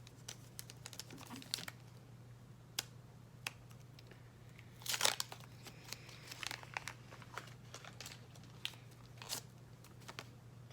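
Plastic wrapper of a Pokémon trading-card pack crinkling and tearing as it is opened, with scattered rustles and clicks. The loudest crackle comes about five seconds in.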